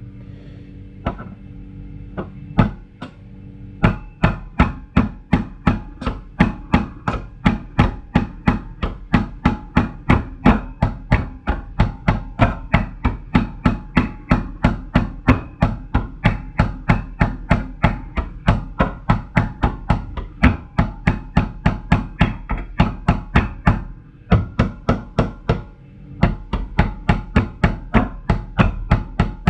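Steady, rapid tapping of pliers on the plastic cup holder unit, about two taps a second, driving a stiff hinge pin back into its hole; the tapping pauses briefly near the end, then resumes.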